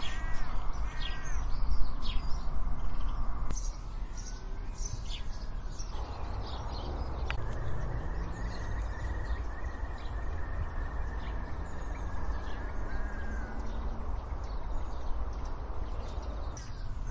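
Garden birdsong: several small birds chirping and singing throughout, with a few quickly repeated arched calls in the first second and a half, over a steady low background rumble that eases about three and a half seconds in.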